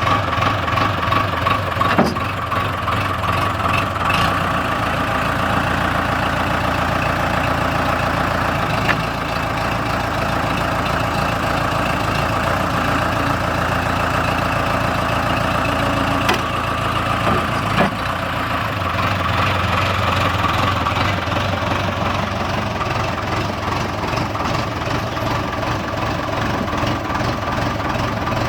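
Diesel engine of a 1998 Case 580L backhoe loader idling steadily, with a few brief sharp clicks.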